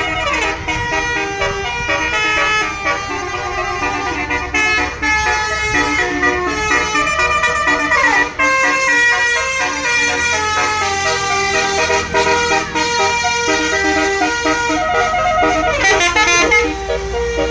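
Basuri bus horn, a multi-tone horn playing a fast tune of quick-changing notes, with a falling siren-like sweep at the start, about eight seconds in and again near the end, over a low rumble.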